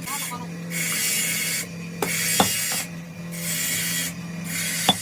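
Rhythmic rasping strokes, about four, each close to a second long, of hand abrasive work on a truck clutch plate, with a few sharp metallic clicks and a steady low hum.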